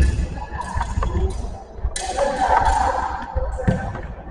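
Sidesword bout: steel blades clash and scrape in several sharp bursts, over the thud of fencers' footwork on a wooden sports-hall floor, echoing in the hall.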